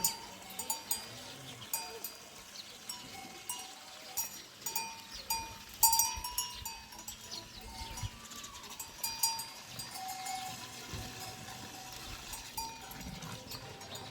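Livestock bells clanking at irregular intervals as a herd moves, each strike ringing briefly at one of a few fixed pitches.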